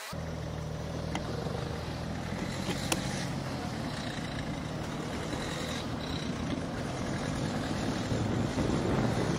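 Car engine running right alongside as it pulls away, a low steady hum that fades about halfway through, with a couple of sharp clicks. Wind noise on the microphone builds near the end as the bike gathers speed.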